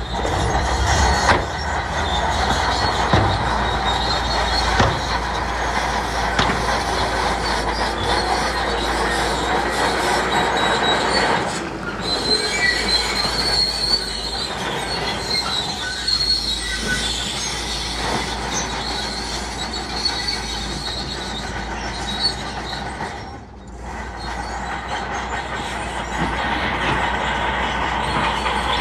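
Crawler bulldozer working: its diesel engine running under the high squeal of its steel tracks.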